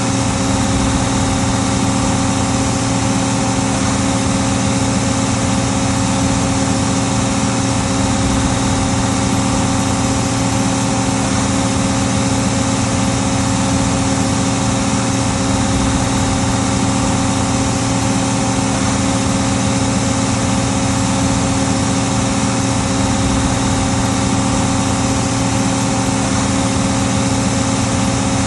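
Case 1570 tractor's diesel engine running at a steady, unchanging pitch under load as it pulls a five-bottom plow.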